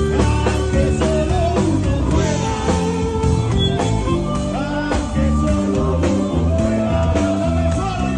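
Live band music played through the stage sound system: electric bass and drum kit, with a man singing into a handheld microphone.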